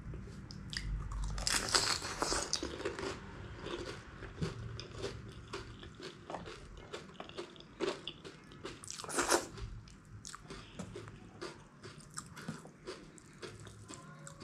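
Close-up chewing and crunching of pani puri, the crisp fried shells filled with water. The crunches are sharpest about two seconds in and again about nine seconds in.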